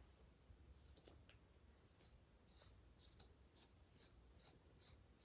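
Scissors cutting through t-shirt fabric in steady snips, about two a second, starting about a second in.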